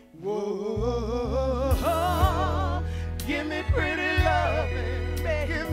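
Soul ballad duet: a man and a woman singing long, drawn-out notes with wide vibrato over bass and drums, starting right after a brief break.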